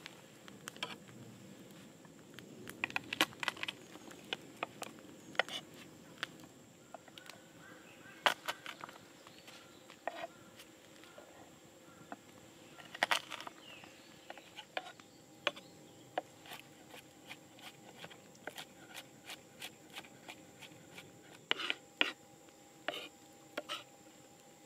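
Knife slicing and mincing garlic cloves on a wooden cutting board: irregular sharp taps of the blade against the wood. A faint steady high-pitched tone runs underneath.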